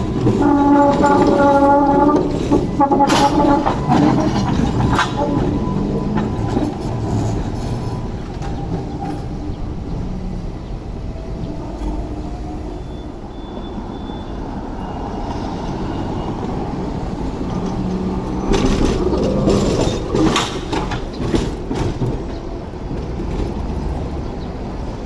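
Hong Kong double-decker electric trams running on street track: a steady low rumble with a pitched hum for the first two seconds as one tram passes close by, then a run of sharp wheel clicks and clatter on the rails about three-quarters of the way through as a second tram comes up.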